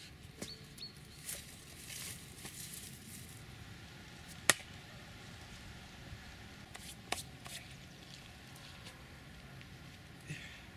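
Steel garden spade digging into loose soil: scattered scrapes and crunches of the blade. There is a sharp click about four and a half seconds in and a smaller one about seven seconds in.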